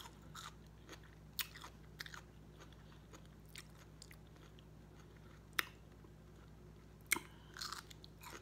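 Someone chewing pickled okra close to the microphone, with scattered small crunches and mouth clicks. The sharpest crunches come a little past five seconds and about seven seconds in.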